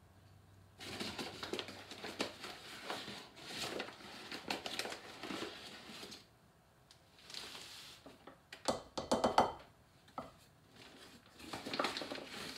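A metal measuring cup scooping flour out of its bag, being levelled and tipped into a mixing bowl: scrapes, bag rustling and light taps of the cup on the bowl, loudest about nine seconds in.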